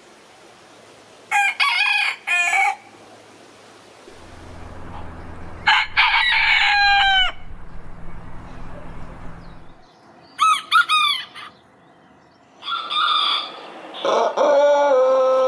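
Roosters of several breeds crowing one after another, five crows in all. The last is a long, drawn-out crow from a Koeyoshi, a Japanese long-crowing breed, still going at the end.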